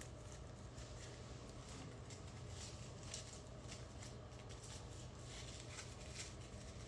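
Faint room noise with a low hum and scattered light clicks and rustles.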